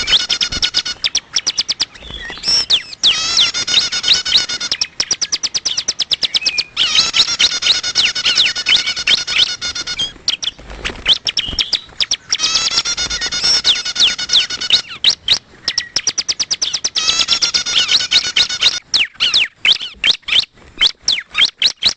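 Bar-winged prinia (ciblek) calls: phrases of fast, repeated high chirps about two to three seconds long come five times with short pauses between them. Near the end a quick run of separate sharp notes follows.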